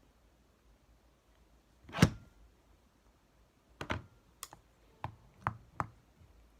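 Sharp clicks and knocks: one loud knock about two seconds in, then a string of lighter clicks a few tenths of a second apart.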